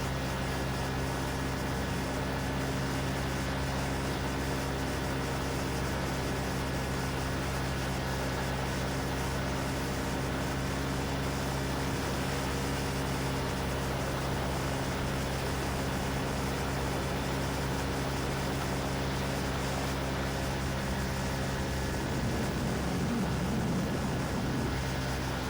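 Quicksilver MXL II ultralight's engine and propeller running at a steady speed, under a hiss of wind. A little past three quarters of the way through, the sound wavers and gets slightly louder.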